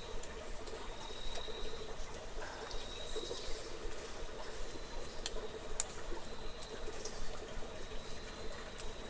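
Cave ambience: a steady hiss with scattered sharp clicks like water drips, and a thin high insect trill that comes and goes every second or two.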